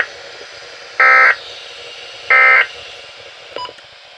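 Weather radio SAME digital data tones: the end of one short buzzing burst, then two more at even spacing about 1.3 s apart, over steady radio hiss. These are the end-of-message bursts that close a severe thunderstorm warning broadcast.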